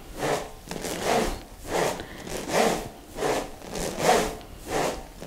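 Smovey rings swung loosely at the sides, the steel balls inside each hollow ring rolling around with every swing. The result is a rhythmic rushing rattle that swells about once every three quarters of a second.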